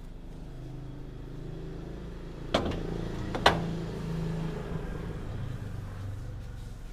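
A motor vehicle engine running steadily, swelling a little around the middle and easing off, with two sharp clicks close together a few seconds in.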